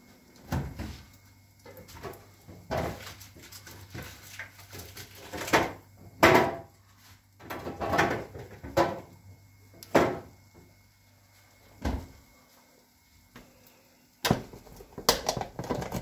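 Refrigerator door opened and later shut, with scattered knocks, bumps and rattles of things being moved about inside the fridge. A low steady hum runs through most of it and stops about three-quarters of the way through.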